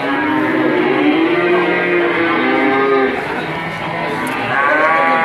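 Cattle mooing: one long, drawn-out moo, then a second moo that rises and falls, starting about four and a half seconds in.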